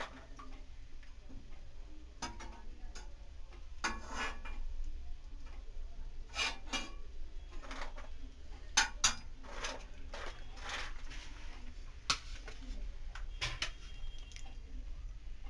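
Freshly fried, crisp namak paare rattling and clinking as they are moved about in a dish, in short scattered bursts of sharp clicks; the dry rattle shows how crisp they are.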